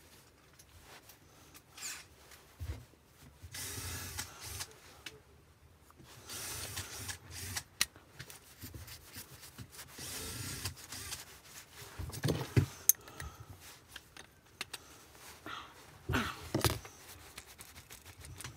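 Workshop tool noise from work on a Wagner Control Pro paint sprayer's pump: several short bursts of tool noise, each lasting about a second, then a few sharp clicks and knocks of metal parts near the end.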